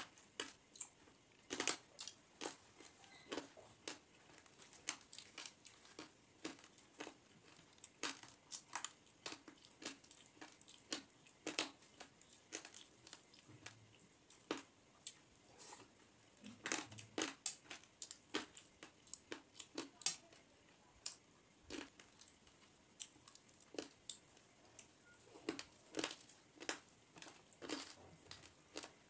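Close-miked eating sounds: fingers mixing and mashing rice with fried food on a metal plate, and chewing, heard as an irregular run of sharp clicks and crackles.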